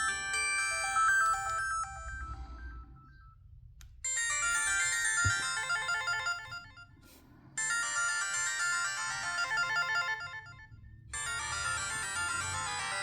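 LG MG180 mobile phone ringtones playing. One tune fades out in the first couple of seconds. After a short gap, bright synthesized melody phrases start about four seconds in and stop briefly twice.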